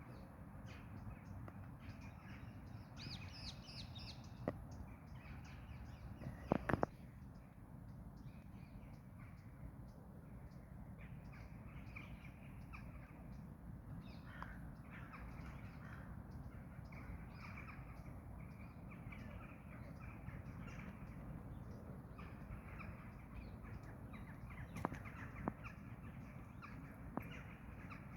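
Crows cawing now and then over a steady outdoor background hum, with a few sharp clicks; the loudest clicks come about six and a half seconds in.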